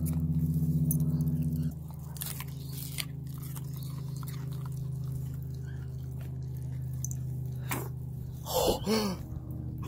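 Dogs chewing and crunching raw asparagus spears close to the microphone, with scattered short crunches over a steady low hum. Near the end comes a short voice-like sound that rises and falls.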